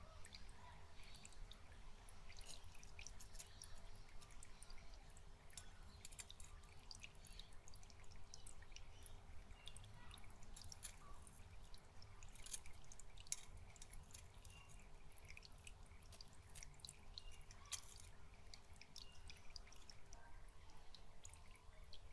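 Faint dripping and trickling of water in a shallow aquarium, with many small irregular drips over a steady low hum.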